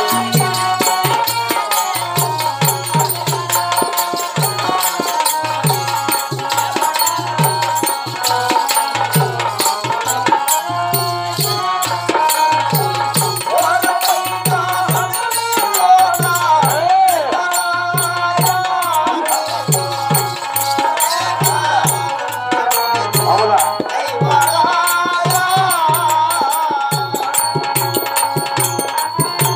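Live folk-drama music: a steady hand-drum beat with a jingling rattle under a sustained, wavering melody line.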